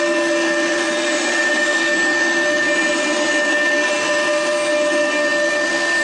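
Fulltek PA-3713 CNC machining center's router spindle running with a steady whine while its bit cuts solid wood, throwing out sawdust.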